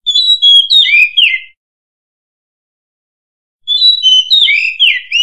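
Oriental magpie-robin singing: a quick phrase of sliding whistles and chirps lasting about a second and a half, then dead silence, then a second, longer phrase starting about three and a half seconds in.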